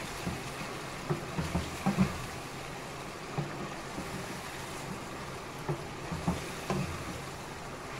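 Chicken karahi sizzling in hot oil in a non-stick wok as it is stirred with a wooden spatula, a steady frying hiss. The spatula knocks and scrapes against the pan about eight times at irregular moments.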